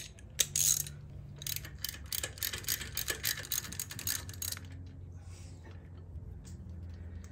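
Ratchet wrench with a spark plug socket clicking in quick runs as a spark plug is backed out of a motorcycle cylinder head. The clicking stops about four and a half seconds in.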